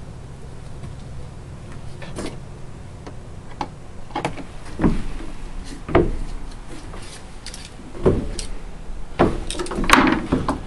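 A series of irregular thumps and scrapes, about half a dozen in the second half, the loudest near the end, over a low steady hum.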